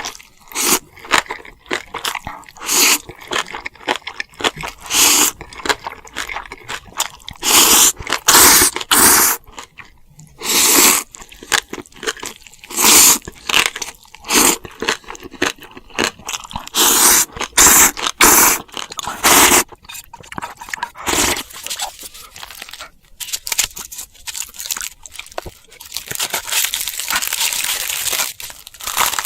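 Close-miked eating of crisp, crunchy food: loud crunching bites and chewing, coming in quick separate bursts. Near the end it turns into a denser, steadier crackle.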